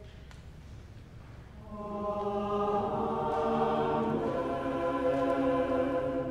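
Church choir singing a sustained a cappella response in chords, entering about a second and a half in after a quiet moment.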